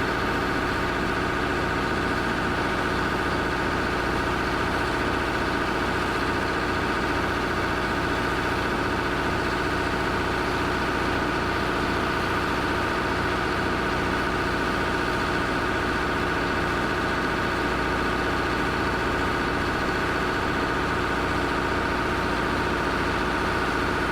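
Large engine running at a steady speed with no change in pitch or loudness, with a fine regular pulsing in its low rumble.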